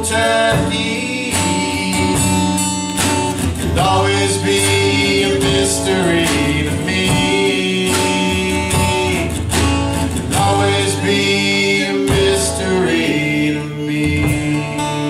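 Acoustic guitar strumming with male voices singing long held notes, a live two-man performance of a song.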